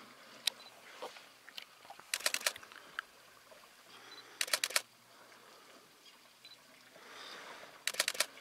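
Camera shutters firing in three quick bursts of rapid sharp clicks, a couple of seconds apart, with a few single clicks between.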